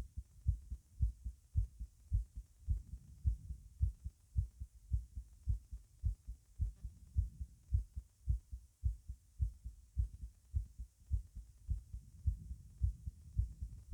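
Human heartbeat heard over the mitral area of the chest while standing: a rapid, steady run of low lub-dub thumps.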